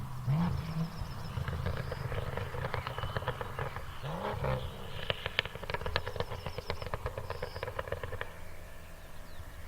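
Tuned BMW M2's straight-six running through an Fi valved exhaust: two quick throttle blips, about 4 seconds apart, each followed by a rapid string of exhaust crackles and pops on the overrun, thinning out near the end over the low idle.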